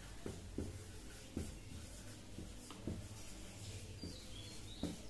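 Marker pen writing on a whiteboard: faint, irregular taps and rubbing strokes of the tip on the board.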